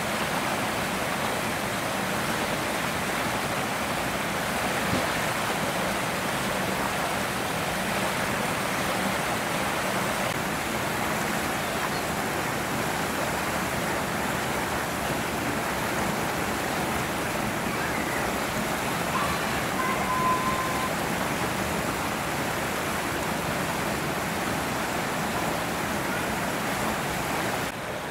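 A steady, even rushing noise, like running water, with a brief thin tone about twenty seconds in; the noise drops in level near the end.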